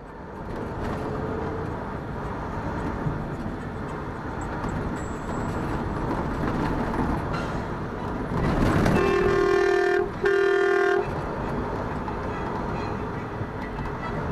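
Semi truck's horn blown twice, two blasts of about a second each with a short gap between, over steady road and engine noise from inside the cab: a warning at a car cutting across in front of the truck.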